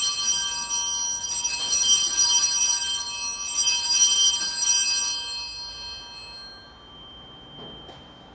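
Altar bells rung at the elevation of the chalice during the consecration: bright, high ringing, shaken again several times, then dying away about six or seven seconds in.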